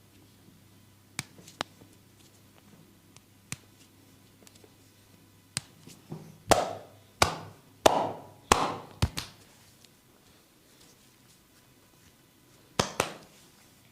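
Percussive hand strikes of a barber's massage on skin, the slaps and cupped-hand pops of 'skin cracking'. A few light taps come first. Then a run of about five loud, hollow-sounding slaps comes about two-thirds of a second apart in the middle, and two sharp hits in quick succession near the end.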